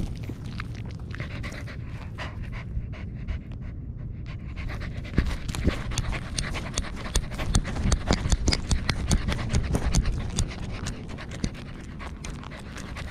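Corgi panting close up, with a steady low rumble and rapid clicking and knocking that thickens from about five seconds in.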